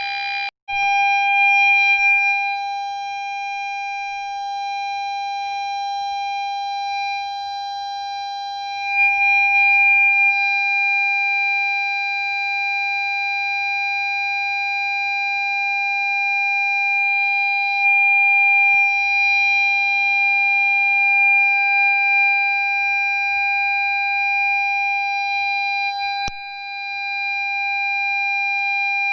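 Ford Fiesta parking-sensor warning sounding one continuous, unbroken tone, the solid tone these sensors give when an obstacle is very close. It cuts out for a moment less than a second in, then holds steady.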